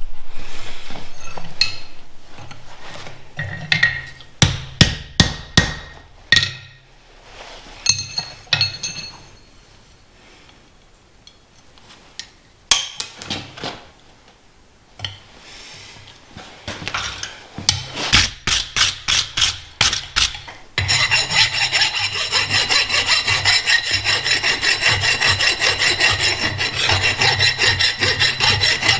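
Steel being worked by hand: bursts of hammer blows on the anvil with a ringing tone, then from about two-thirds of the way in, a long run of fast, regular scraping strokes on the steel.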